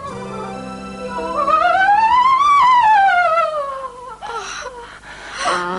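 A soprano voice sings a vocal scale exercise, gliding up and back down with wide vibrato over held accompanying notes. About four seconds in, it breaks off into short, strained vocal sounds.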